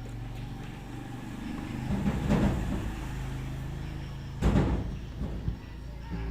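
Vehicle engine running steadily, with two louder noisy surges, about two seconds in and again past four seconds.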